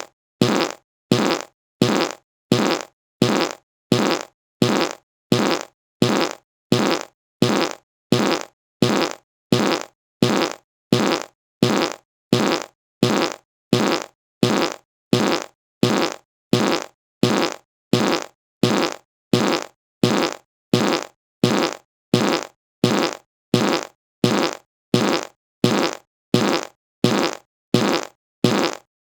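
A short fart, repeated over and over at an even pace, about three every two seconds. Each one is identical and dies away quickly.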